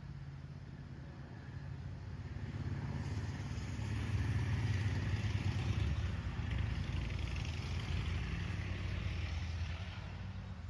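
A motor vehicle passing by on the road, its engine and tyres growing louder over the first few seconds, loudest in the middle, then fading away near the end.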